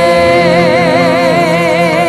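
Live worship band: several voices hold a long sung note with wide vibrato over steady guitar and bass accompaniment.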